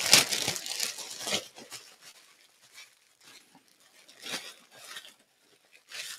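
Clear plastic poly bag crinkling and rustling as a garment is pulled out of it, loudest in the first second and a half, then a few short, quieter rustles.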